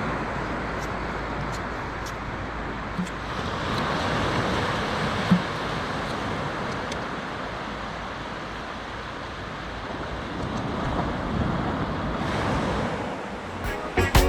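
Sea waves breaking and washing up on a sandy beach, a steady rush that swells and eases in slow surges.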